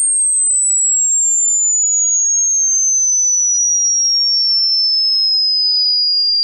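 A pure electronic sine tone sliding slowly and evenly downward in pitch, from a very high whistle-like pitch to a somewhat lower one, at a steady loud level.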